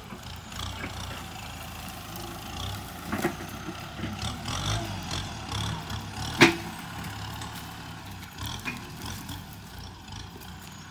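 Kubota M6240 SU-H tractor's four-cylinder turbo diesel running steadily under load as its front blade pushes into brush. A few sharp cracks cut through, the loudest about six and a half seconds in.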